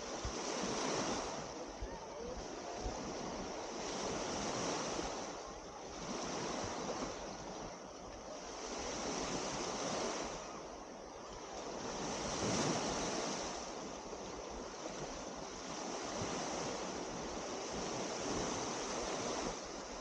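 Small waves breaking and washing up a sandy beach, the surf swelling and fading every few seconds.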